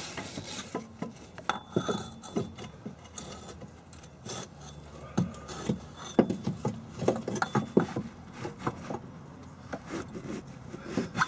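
A turbocharger being worked loose and pulled out of a car's engine bay: irregular knocks, clunks and scraping of metal parts.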